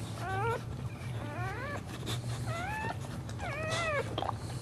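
Pregnant boxer dog whining in labour: four short high whines, each rising then falling in pitch, about a second apart, over a steady low hum.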